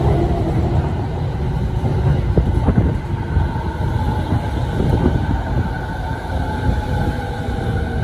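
Electric commuter train moving slowly through the platform. There is a steady low rumble with a few wheel clacks over rail joints, and a steady high whine that becomes clearer about halfway through.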